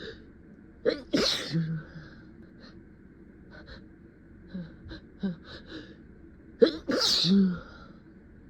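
A person sneezing twice: a sudden noisy burst about a second in and another about six and a half seconds in, each ending in a short voiced tail. Quick catching breaths and small sniffs come between the two sneezes.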